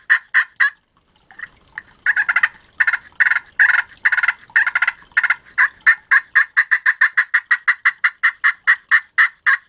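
Glass-surfaced aquarium-pot friction turkey call, played wet with a wooden striker straight out of the water, making raspy yelps. A few notes, a pause of about a second, then a run of longer yelps, then a fast, even series of short notes about four a second.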